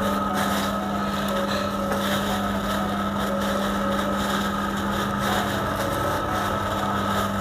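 A steady machine hum of unchanging pitch, like a motor or fan running, with faint rustling of a plastic bag-glove as boiled chicken is torn apart by hand.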